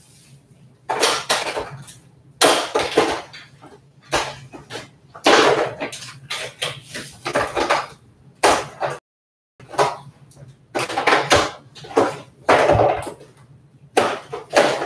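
Someone rummaging through belongings, with a string of irregular clattering knocks and scrapes as objects are moved and set down. The audio cuts out for about half a second near nine seconds in.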